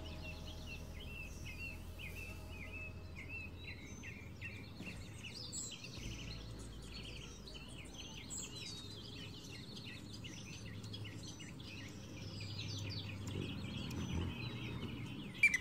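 Small songbirds chirping: a steady chatter of many short, high chirps overlapping one another, over a faint low background hum.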